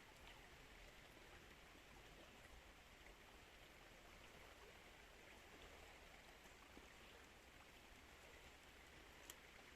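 Faint, steady rush of flowing river water, with a small tick shortly before the end.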